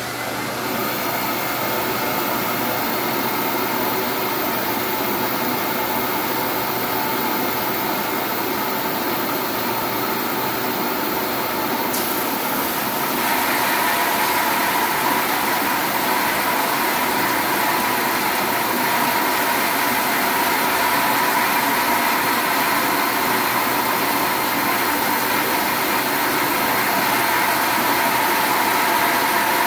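Flatmaster drum sander running steadily, a loud machine hum with a faint steady whine. About thirteen seconds in it grows a little louder and brighter as a long MDF board feeds under the drum and is sanded.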